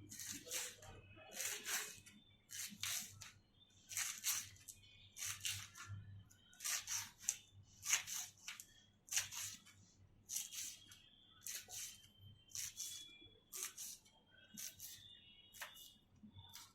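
Leftover rotis being torn into small pieces by hand, a short rasping tear about once every second.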